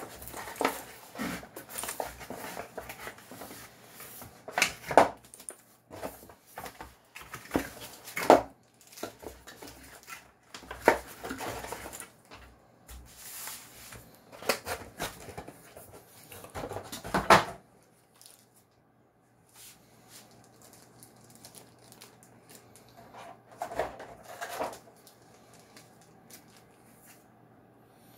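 Packaging being handled while a mechanical keyboard is unboxed: irregular crinkling and rustling of plastic wrap with knocks of the keyboard and cardboard box. About two-thirds of the way through it goes quiet, apart from one short rustle of a small plastic bag.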